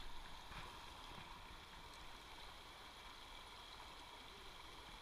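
Faint, steady rushing of a small river flowing over a shallow riffle.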